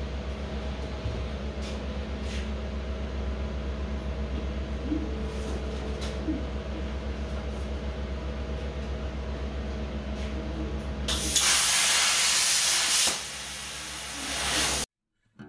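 Primeweld Cut60 plasma cutter setup humming steadily. About 11 seconds in, a loud hiss of air from the plasma torch starts as it fires, drops lower about two seconds later, then cuts off abruptly.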